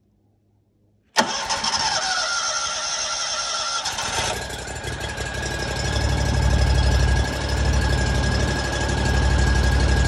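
2022 Scag Patriot zero-turn mower's engine being started with the key: the electric starter cranks it for about three seconds, it catches a little after four seconds in, then runs steadily with a low pulsing beat.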